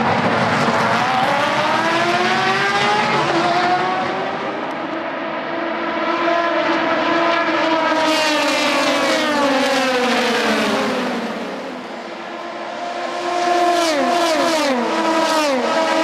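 A pack of endurance racing cars, prototypes and GT cars, accelerating hard at a race start, many engines overlapping with their notes rising and falling as they pass. Toward the end, several cars go by close, their engine notes climbing and dropping back in quick steps as they shift up.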